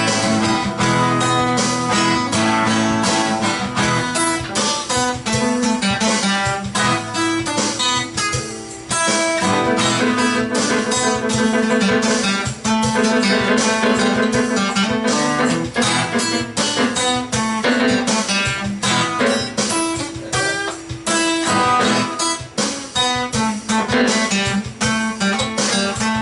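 Guitar playing an instrumental break of a rock song: a stream of quick plucked notes and strummed chords, with no singing.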